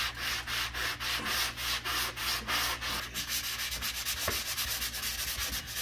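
Angled drywall sanding sponge scrubbed rapidly back and forth over dried joint compound, about four to five strokes a second, smoothing the patched mud.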